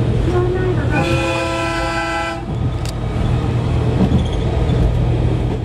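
A 113 series electric train sounds its horn once, a held note lasting about a second and a half. The steady rumble of the train running on the rails sits underneath.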